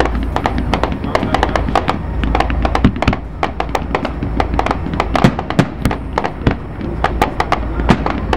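Fireworks display going off in rapid succession: a dense stream of sharp cracks and bangs, several a second, over a steady low rumble.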